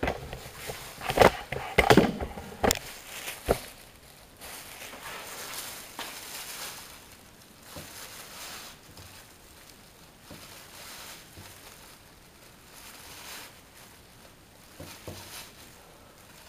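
A few sharp knocks in the first few seconds, then faint, uneven scraping as a hacksaw blade is pressed down through a damp slab of star composition, slicing it into strips.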